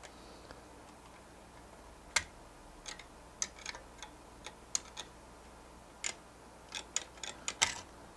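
Sharp plastic-and-metal clicks and taps from a Threadripper TR4 CPU socket's spring-loaded rail frame, with its clear plastic cover, being released and lifted by its blue tabs. There are a dozen or so irregular clicks, the loudest about two seconds in and another near the end.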